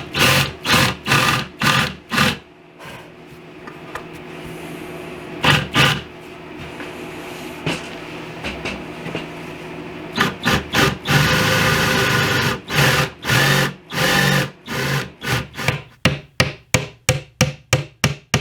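Hammer tapping on wood in runs of sharp strikes, with a quieter stretch of rubbing in the middle and a fast, even run of strikes near the end.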